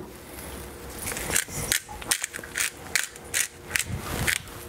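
Hand-twisted pepper mill grinding black pepper, a rhythmic crunching ratchet at about two to three strokes a second.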